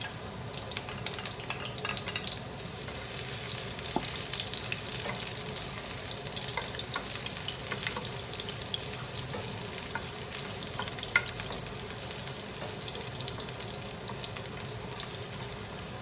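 Chopped garlic and ginger sizzling steadily in hot oil in a nonstick frying pan, stirred with a wooden spatula that gives scattered light clicks and scrapes against the pan.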